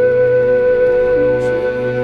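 Background music: a Vietnamese bamboo flute (sáo trúc) holding one long steady note over a low sustained accompaniment.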